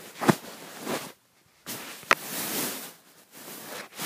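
Handling noise from a phone camera being picked up and repositioned: rubbing and fumbling with two sharp knocks, one just after the start and one about two seconds in, and the sound drops out briefly between them.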